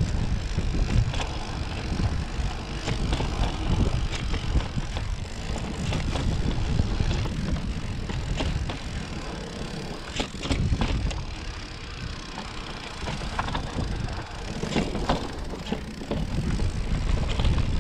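Fantic Integra 180 electric mountain bike rolling downhill over a dirt and rock singletrack: tyres crunching on the trail with scattered clicks and rattles from the bike, under a steady rumble of wind on the action camera's microphone.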